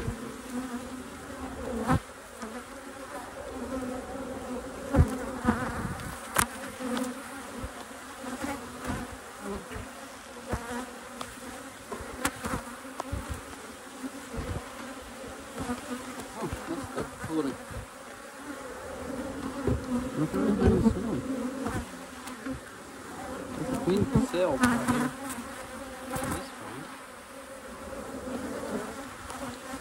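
Honeybees buzzing around an open hive, a steady hum with scattered knocks and clicks. The buzzing swells louder twice in the second half.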